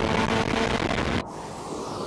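Car engine running at steady revs under a rush of wind and road noise, cut off abruptly a little over a second in, leaving a quieter low rumble.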